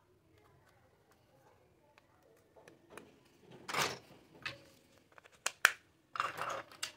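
Hard plastic toy kitchen pieces clattering and clicking together as they are picked up and handled. It starts faint, then comes in short rattles, with a sharp click about five and a half seconds in.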